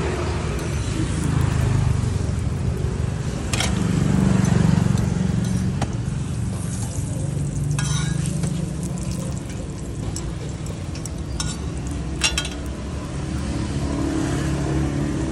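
Banana roti pancake frying in oil on a flat steel griddle, sizzling steadily, with a handful of sharp clicks of metal tongs against the griddle. A low rumble runs underneath.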